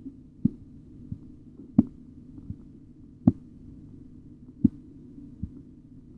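Korotkoff sounds through a stethoscope during a blood pressure reading: a sharp tap with each pulse beat, about every second and a half, most followed by a fainter tap, over a steady low hum. The taps are the pulse heard between systolic and diastolic pressure as the cuff deflates.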